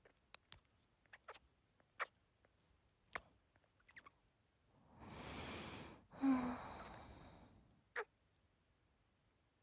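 Soft kissing sounds close to an ASMR microphone: scattered light lip smacks. About five seconds in comes a long breath in, then a sighing breath out with a brief hum.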